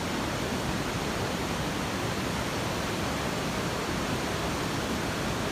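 Steady rushing roar of a wide river and its waterfall, the water running high, an even noise with no breaks.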